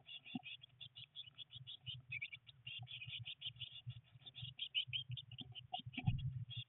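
Blue tit nestlings inside a nest box chirping rapidly, several short high chirps a second, with a dull thump about six seconds in.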